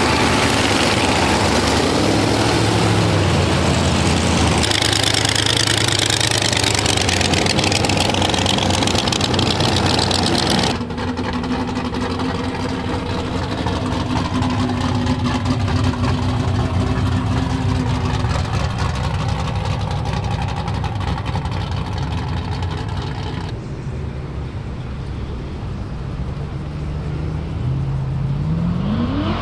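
Car engines and exhausts as several classic and muscle cars drive past one after another: loud engine running throughout, a steady idle through the middle, and an engine revving up in rising pitch near the end.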